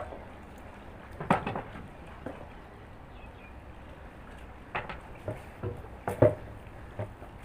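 Scattered light knocks and clicks from hand work on a dock water pipe, a handful of separate strikes over a steady low background noise.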